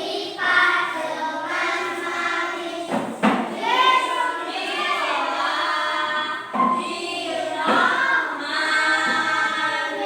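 A group of children singing a song together, with some notes held for about a second.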